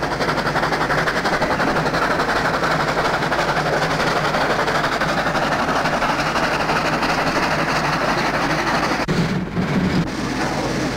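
Steam locomotive working, a steady rush of steam with a fast, even chuffing. The sound changes briefly near the end.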